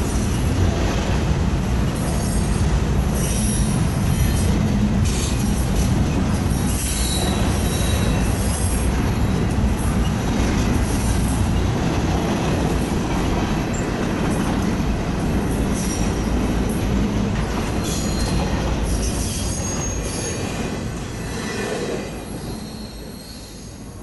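Freight train of double-stack container cars rolling past: a steady rumble and clatter of wheels on rail, with brief high-pitched wheel squeals now and then, heard from inside a car. The sound drops away near the end.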